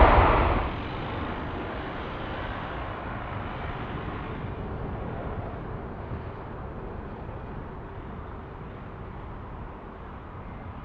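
Jet airliner's engines after takeoff: a wide rumble that drops sharply within the first second, then a steady noise that fades slowly as the aircraft climbs away.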